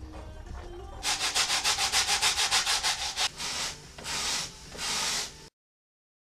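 Wooden beehive frames being scraped with a hand scraper, stripping old comb: a fast run of short, even strokes, then three slower, longer strokes, cutting off suddenly near the end.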